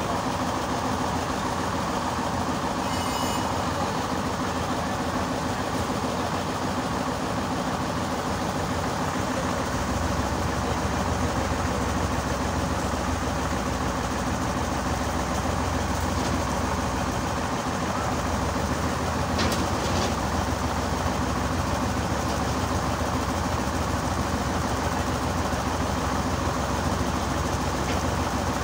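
Crane truck's diesel engine running steadily, its low rumble growing heavier about ten seconds in.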